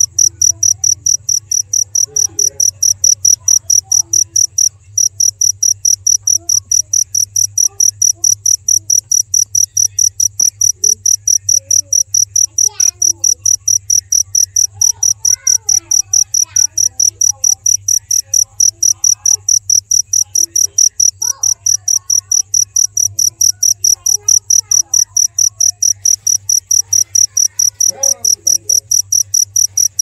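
Cricket chirping steadily, a high-pitched chirp repeated a few times a second without a break, over a faint low steady hum.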